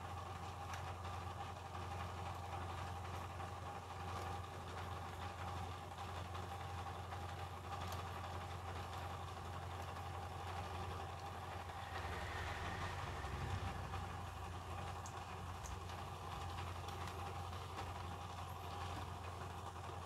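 A steady low mechanical hum with occasional faint clicks and taps as laptop parts are handled and pried apart.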